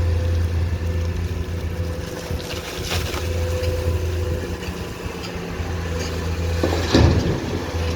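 Komatsu PC210-10M0 hydraulic excavator's diesel engine running steadily, its note dipping and recovering twice as it works. There is a knock about 3 seconds in and a louder heavy knock about 7 seconds in.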